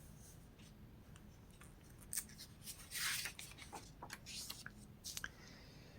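Faint rustling and rubbing of catalog paper being handled as a page is turned, in several short scrapes starting about two seconds in.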